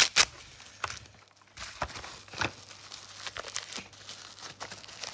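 Packaging crinkling and rustling in the hands as a small model locomotive is unwrapped from its box, with irregular sharp crackles and clicks, the loudest two right at the start.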